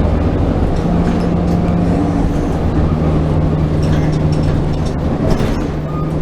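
City bus running: a steady low engine hum under continuous rumbling noise.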